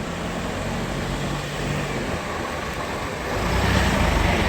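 A car engine running steadily, with a low hum under an even mechanical noise that swells louder about three seconds in.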